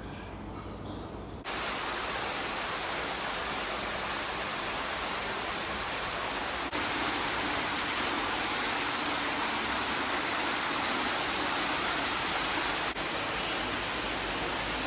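Steady rushing noise that starts suddenly about a second and a half in, with two abrupt small jumps in level later on.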